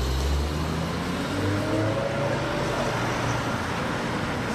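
Ferrari F12's V12 engine accelerating, its pitch rising over the first two seconds or so above a steady low rumble.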